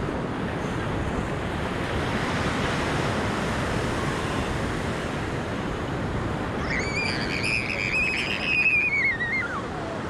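Ocean surf washing onto a sandy beach, a steady rush of noise with some wind on the microphone. About seven seconds in, a high, wavering cry of nearly three seconds rises above the surf and is the loudest sound.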